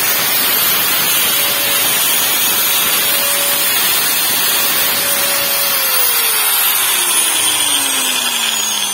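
Metabo angle grinder's carbon-brush motor running with no disc on the spindle, on a test run after a no-power repair: a loud steady whine. About six seconds in, its pitch begins to fall steadily.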